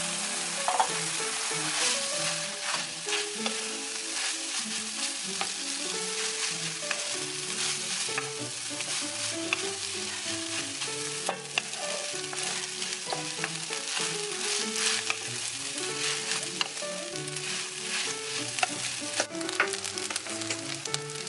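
Fried rice with scrambled egg sizzling in a hot non-stick wok while a wooden spatula stirs and tosses it, the sizzle broken by frequent small clicks and scrapes of the spatula against the pan.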